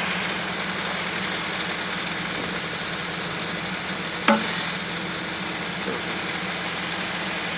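Tractor engine running steadily while powering a 3-point-hitch backhoe attachment, with a single sharp knock about four seconds in.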